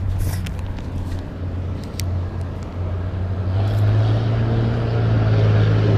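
An engine running at a steady pitch, growing louder about three and a half seconds in.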